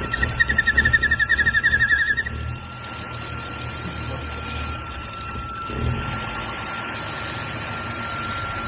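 BMW N55 turbocharged inline-six running, with a weird noise from the air intake: a rapid pulsing high squeal, about seven chirps a second, for the first two seconds, then a thin steady high whine over the engine's low running.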